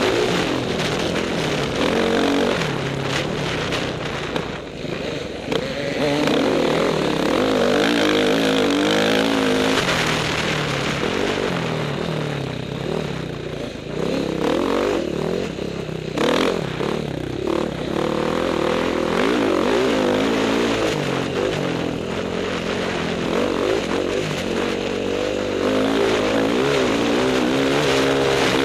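Dirt bike engine heard from on board, revving up and down again and again as the throttle is opened and closed along a dirt trail. It dips briefly quieter a few times, about four seconds in and again near the middle.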